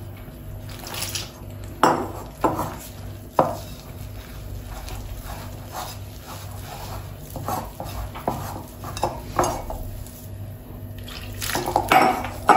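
A hand mixing gram flour and water into batter in a bowl: irregular squishing and scraping with sharp knocks against the bowl, the loudest about two to three and a half seconds in, while water is added a little at a time from a jug.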